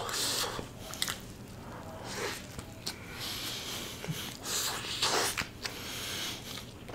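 Close-miked chewing and mouth sounds of someone eating a soft burger of noodles and potato patty: soft, wet smacks and small clicks with noisy breaths between them.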